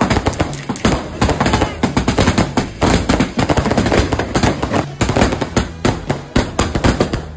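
Firecrackers going off in a rapid, irregular string of small bangs and crackles.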